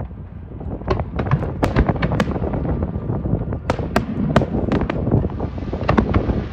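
Aerial fireworks going off: a quick, irregular run of sharp cracks and bangs in clusters over a low, continuous rumble.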